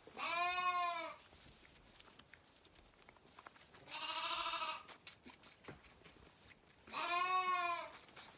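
Zwartbles lambs bleating three times, each wavering call about a second long, while hungry at bottle-feeding time.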